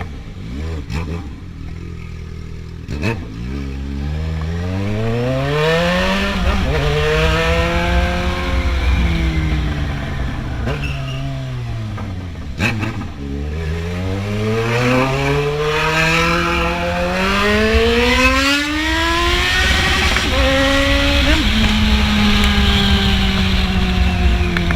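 Yamaha XJ6's inline-four engine, loud through a 4-into-1 exhaust. It starts near idle, then its revs climb slowly and fall away twice, with a few short blips near the end.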